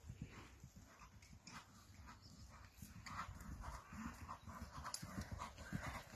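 Hoofbeats of a ridden horse on a sand and gravel arena surface, faint at first and growing louder in the second half as the horse comes nearer.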